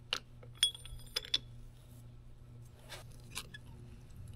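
Light metallic clicks and clinks, four sharp ones in the first second and a half, some briefly ringing, then two softer ones about three seconds in, as a 930 CV joint is worked and measured for plunge. A steady low hum runs underneath.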